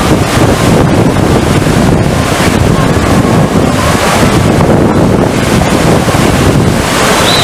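Loud, steady rushing of water from a FlowRider surf simulator's pumped sheet wave, with wind buffeting the microphone.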